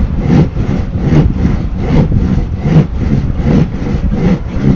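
Hand saw cutting through a PVC trim board (Azek 1x12) in steady back-and-forth strokes, about two and a half strokes a second.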